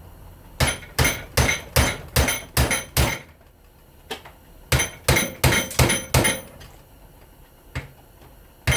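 A hammer striking a screwdriver used as a punch, with sharp ringing metal blows about two and a half a second: a run of seven, a short pause, about five more, a single blow, then another run starting at the end. It is driving a tight steel part out of a scrapped electric motor clamped in a vise.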